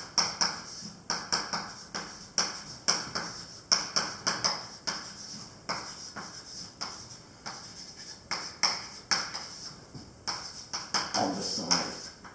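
Chalk tapping and scraping on a blackboard while words are written, in quick irregular sharp strokes, two or three a second.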